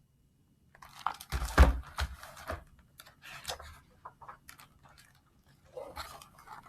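Paper picture-book pages being handled and turned: irregular rustling, crinkling and soft clicks, with a dull knock about a second and a half in.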